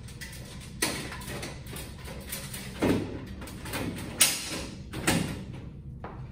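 Hinged metal door frame of a 2x2 fluorescent troffer, holding a cell lens, being swung shut and pressed into place: about four sharp clicks and knocks, the sharpest about four seconds in.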